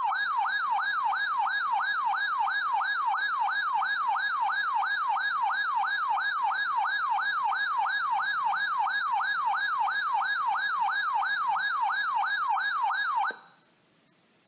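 Weather alert radio's electronic siren alarm sounding for a warning: a loud synthetic wail sweeping up and down about three times a second. It stops abruptly after about 13 seconds.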